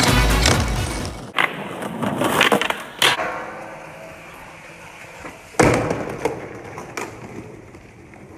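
Skateboard on pavement: a few sharp pops and wheel knocks, then urethane wheels rolling, and a loud board landing about five and a half seconds in after a trick on a stair handrail. Music at the start fades out within the first second.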